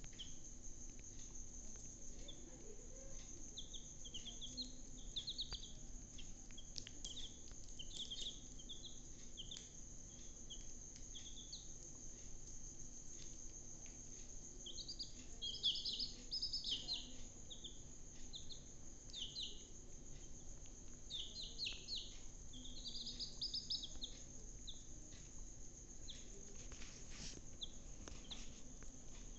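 Young chicks peeping: runs of short, high chirps that come in clusters, loudest about halfway through and again near the end, over a faint steady high-pitched tone.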